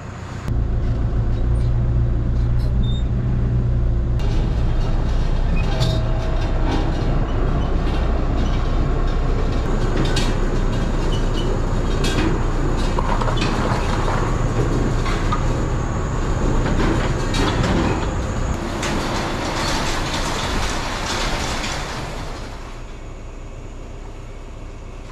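Engine running steadily with loud metal rattling and clanking, busiest shortly before it drops to a quieter running sound about 22 seconds in.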